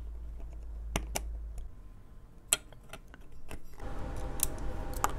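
Scattered light clicks and taps of small screws, a nut and plastic parts being handled and fitted by hand onto a 3D printer extruder and stepper motor. A low steady hum comes up about four seconds in.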